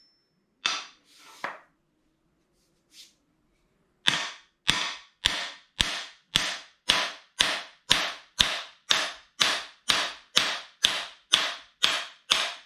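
Hammer blows on a cam bearing removal tool, driving a camshaft bearing out through its journal in a small-block Chevy 350 block. A couple of lighter knocks come first, then about four seconds in a steady run of about seventeen sharp, ringing strikes at about two a second.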